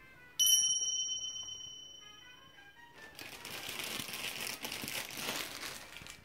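Soft background music of short melodic notes. A bright chime sound effect strikes about half a second in and rings out over a couple of seconds. From about halfway through there is a rustling, crinkling noise.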